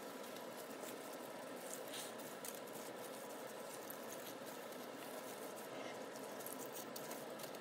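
Faint rustling and scattered small ticks from hands handling pastry parcels on a baking tray lined with baking paper.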